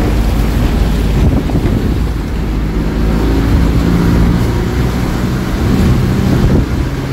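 Bus engine running with a low, steady drone while riding, heard from inside the moving bus, with wind buffeting the microphone.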